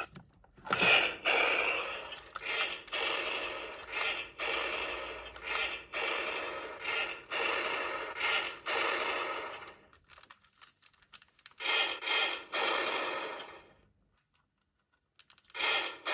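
Talking Optimus Prime Transformers toy playing electronic sound effects through its small speaker: a run of crackly, mechanical-sounding bursts a second or two long, going quiet near the end.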